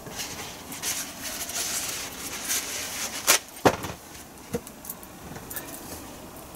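Paper towel rustling and crinkling as it is handled, then a few sharp knocks and clinks as a metal wire whisk is put down on it, the loudest about three and a half seconds in.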